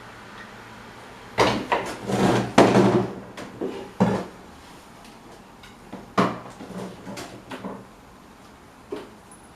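Irregular clunks, knocks and short scrapes of the old electric fan's parts being handled and worked on, with a cluster of them in the first few seconds and scattered ones later.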